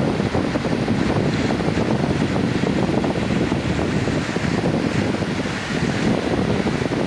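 Sea surf on a beach, a steady rushing wash with no single wave standing out, with wind buffeting the microphone.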